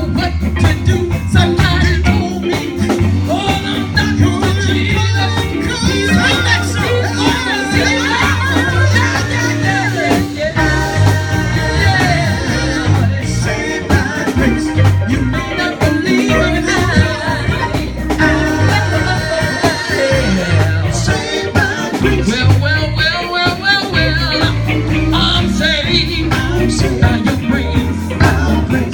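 Live gospel band music with singing over a moving bass line.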